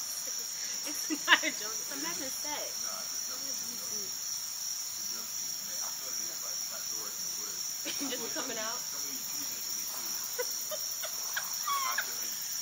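Steady, high-pitched chorus of insects droning without a break, with a sharp click about a second in.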